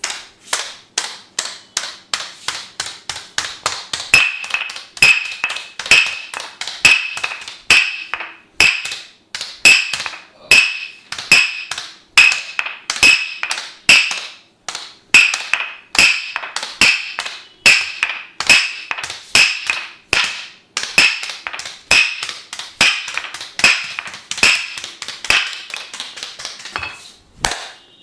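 Percussive massage: a steady run of sharp taps struck on the body, several a second, taking on a ringing tone from about four seconds in.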